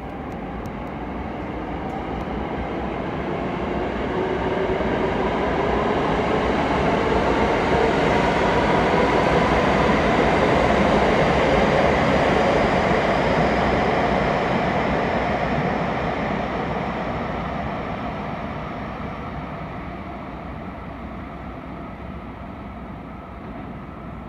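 A train passing on a far track under the station roof. Its rumble and a motor whine build over about ten seconds, peak midway, then fade away as the whine slides down in pitch.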